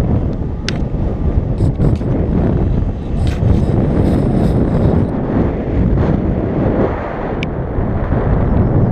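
Wind buffeting an action camera's microphone on a paraglider in flight: a loud, steady rumbling rush, with a small click about a second in and another near the end.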